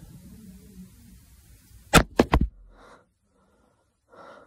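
Three sharp knocks in quick succession about two seconds in, followed by two short breaths over a faint low hum.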